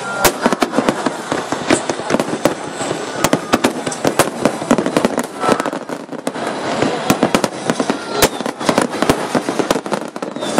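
Fireworks display going off in a dense barrage: many sharp bangs and crackles in quick succession, over a steady rumbling haze.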